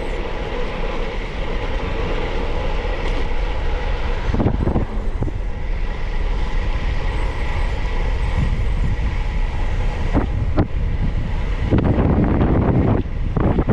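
Wind buffeting a GoPro's microphone, along with tyre and road rumble, on a fast downhill bicycle descent. It grows louder as speed builds and gets heavier near the end, with a few sharp knocks about four and a half and ten seconds in.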